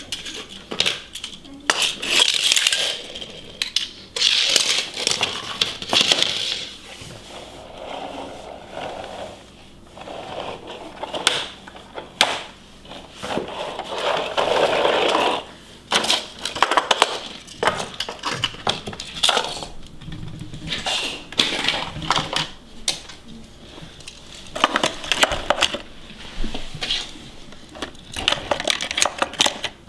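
Small diecast toy cars clicking and clattering against each other, the hard floor and a plastic carrier case as they are handled and loaded, in irregular bursts.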